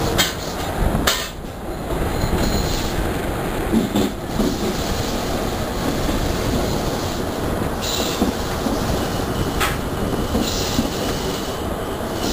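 Passenger train running along the track, heard from an open window of the moving coach: a steady rumble of wheels on rails with a few sharp knocks from the rail joints and brief high wheel squeal.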